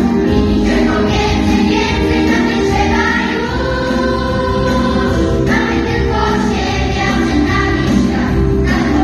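Mixed choir of children and adults singing a Polish song with accompaniment, sustained sung notes that hold steady and change every second or so.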